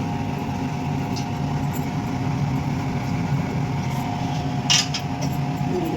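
A steady low hum and whir with a few faint tones held above it, and one short scrape about three-quarters of the way through.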